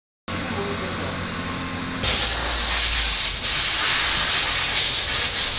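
A low steady hum, joined about two seconds in by a loud, steady hiss.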